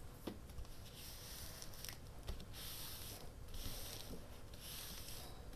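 Paper being rubbed down onto a freshly glued craft tag: about five swishing strokes, roughly one a second, with a few small ticks between them.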